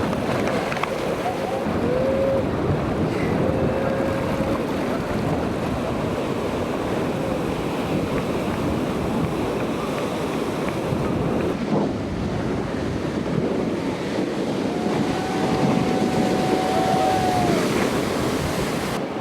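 Ocean surf: a steady rush of breaking waves and water, with a few brief, faint high tones over it, the longest near the end.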